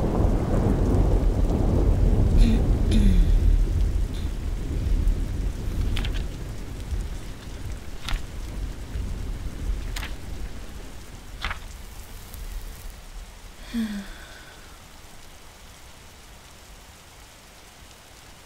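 Thunder rumbling and slowly dying away over steady rain. A few sharp ticks fall about every two seconds in the middle. Near the end only a faint rain hiss is left.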